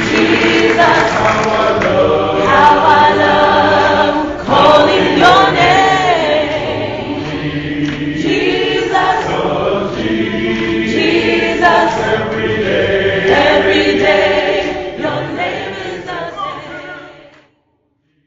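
A choir singing a cappella, many voices together with no instruments, fading out near the end.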